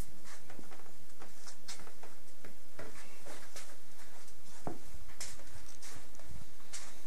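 Scattered light rustles and clicks of a phone being handled as it follows a cat moving about a tiled floor, with one sharper knock just before five seconds in.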